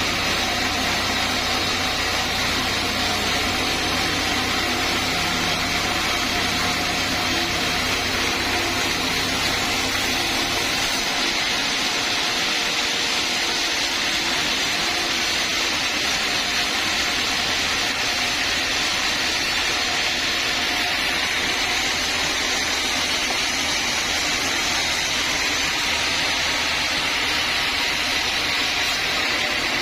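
Sawmill saw machinery running steadily, a constant hissing whir. A low hum underneath weakens about a third of the way through.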